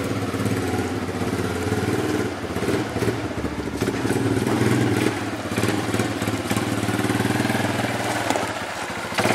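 ATV engine running at a steady speed, with an even, rapid firing pulse.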